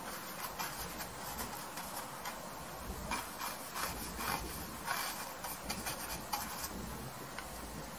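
Bristle paintbrush scrubbing and dabbing oil paint onto canvas in short, scratchy strokes, quicker and louder from about three seconds in.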